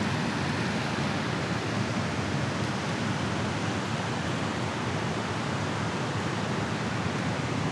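Steady rushing of turbulent water pouring below a dam spillway: an even, unbroken noise.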